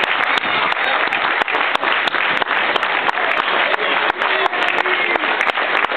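Spectators applauding steadily, with sharp individual claps close by and a few voices calling out.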